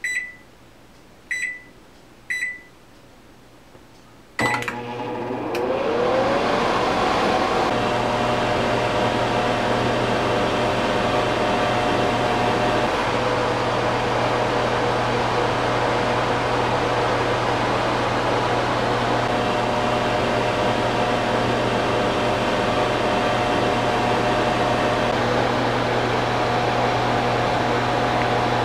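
Microwave oven keypad beeping three times, then a click as it starts, and the oven running with a steady hum.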